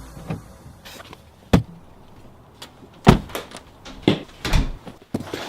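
Irregular knocks and clicks of AR-15 parts and tools being handled while a lower receiver is assembled, with two louder knocks about one and a half and three seconds in.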